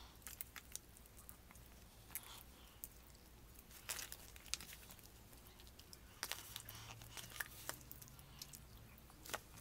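Hands kneading and pressing homemade glue-and-borax slime on a paper plate: faint, irregular sticky crackles and crinkling, with a few louder snaps of the slime pulling apart.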